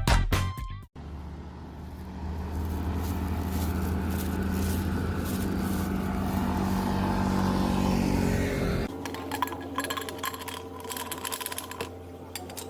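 An electric motor runs steadily for about eight seconds and then cuts off suddenly; light clicks and clatter follow over a low hum.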